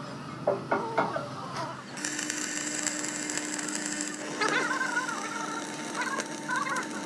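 Stick-welding arc running steadily as the electrode burns along the seam: a continuous crackling hiss with a steady hum, starting about two seconds in after a few short knocks.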